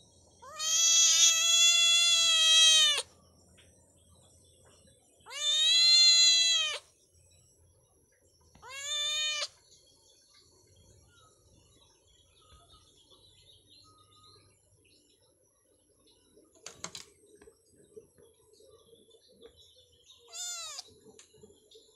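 A kitten meowing four times: a long drawn-out meow at the start, a shorter one a few seconds later, a brief one after that, and a faint short one near the end, each rising then falling in pitch.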